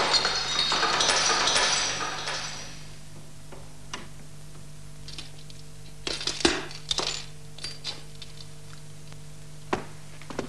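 Glass shattering, with the shards tinkling and clattering down for about two seconds as the sound fades. After it come a few scattered knocks and clicks over a low steady hum.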